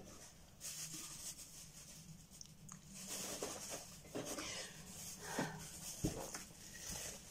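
Faint rustling and a few light taps as small items are handled on a craft table.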